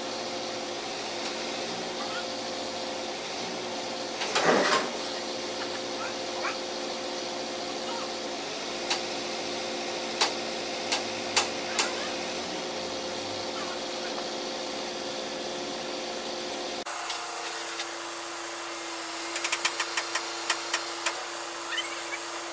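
Loader engine running steadily while a machine is moved off its skid, with a loud clatter about four seconds in and a few sharp metallic knocks. The sound changes abruptly about three-quarters of the way through, followed by a quick rattle of clicks.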